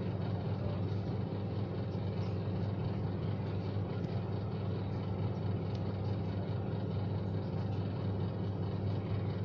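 A steady low hum with a constant background noise, and no distinct clicks or other events.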